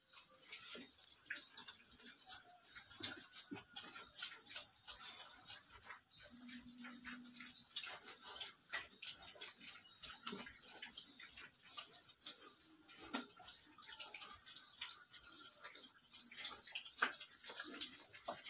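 A small bird chirping over and over, short rising chirps about two a second, with scattered clicks and scuffs of pigs' trotters moving about a concrete pen floor.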